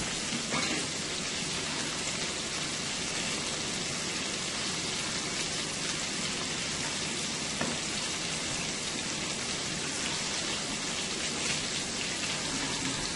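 Breaded shrimp deep-frying in a pot of hot oil: a steady crackling sizzle of bubbling oil.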